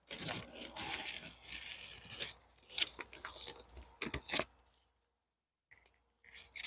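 Backing being peeled off self-adhesive faux-leather vinyl, crackling and tearing in several stretches, with a pause and a short last pull near the end.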